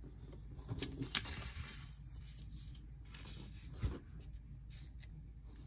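Faint rustling of paper strips being slid and shuffled across a tabletop, with a soft knock just before four seconds in.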